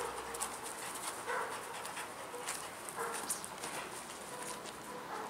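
A dog whining in several short, high whimpers, excited by a rag lure being worked on a fishing rod's line, with faint clicks and rustles in between.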